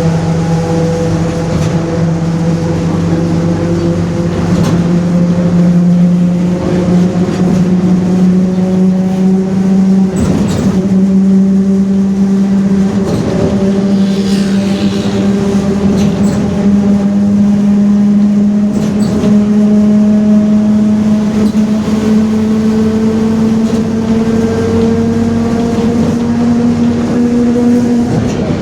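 Rear differential of a Mercedes-Benz OF-1721 bus roaring very loudly: a strong steady drone whose pitch climbs slowly throughout, with a few brief knocks and rattles along the way.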